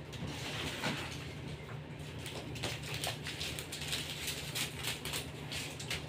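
Scattered soft knocks and rustles of someone moving about and handling things, over a steady low hum.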